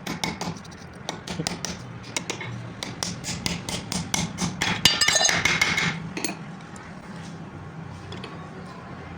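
Rapid hammer blows on metal, about three or four strikes a second, with a louder, noisier stretch about five seconds in. The hammering stops about six seconds in, leaving a low steady hum.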